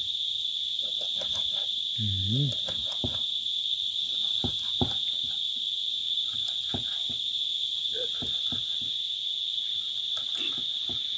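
Steady high-pitched drone of insects, with scattered sharp clicks of a kitchen knife chopping onion and hot pepper on a wooden cutting board.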